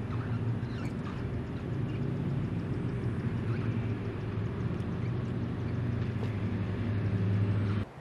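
Steady low drone of a distant engine running, with faint chirps above it; it cuts off suddenly near the end.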